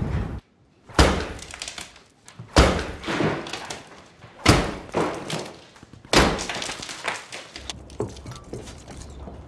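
Sledgehammer blows breaking through a plaster and brick wall: four heavy strikes about two seconds apart, each followed by crumbling and falling debris. Before them, a louder sound cuts off suddenly.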